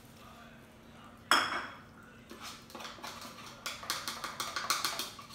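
Cat food bowls and a ceramic plate clinking and knocking on a wooden floor as ragdoll cats and kittens eat from them. One sharp clack about a second in, then a run of quick clinks near the end.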